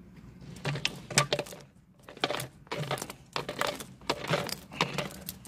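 Motorcycle roller chain (off a Honda CB 125 E) being fed link by link into a thin plastic PET bottle: irregular metallic clinks and rattles of the links against each other and the bottle, with crinkling of the plastic, pausing briefly about two seconds in.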